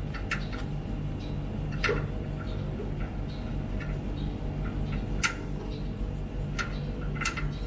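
Light, irregular clicks and taps as fingers handle the underside of a metal TV-cart base, the sharpest about two seconds in and about five seconds in. Under them runs a steady low hum that pulses about three times a second.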